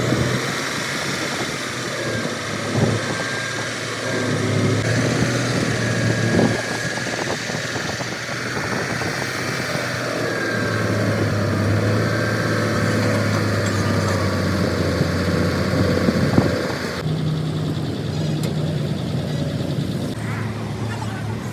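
A heavy engine running steadily, with a wavering high whine above it. About 17 seconds in, the sound changes abruptly and the high part drops away.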